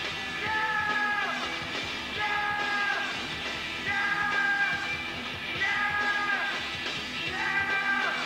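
Live garage-blues rock trio, two guitars and drums, playing loud. A short high phrase is shouted or sung over and over, about every second and a half to two seconds, each time ending in a falling slide.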